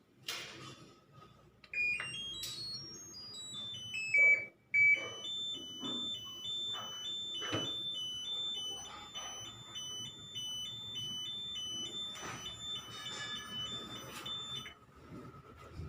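Electronic beeping from a Videocon fully automatic top-load washing machine's control panel: a short tune stepping down in pitch, then a repeated two-note beep alternating about three times a second, stopping near the end. Faint knocks sound underneath.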